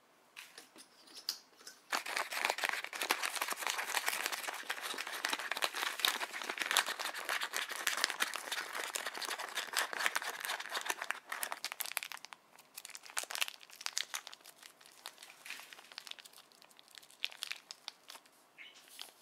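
Foil-lined candy packets crinkling and rustling as they are handled, dense from about two seconds in until about eleven seconds, then in scattered crinkles.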